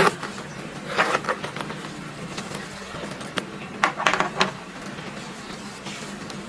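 Handling noise of a handbag: rustling and light metallic clicks from its zipper and strap clasps, in short bursts about a second in and again around four seconds in, over a steady low hum.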